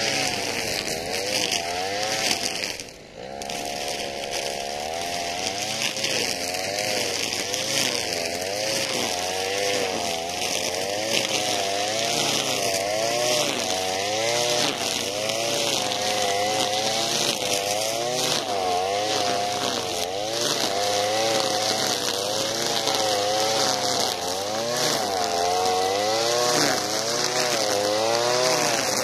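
Alpina Star 55DP petrol brushcutter's two-stroke engine running hard while cutting dry weeds. Its pitch rises and falls again and again as the load changes. The sound dips briefly about three seconds in.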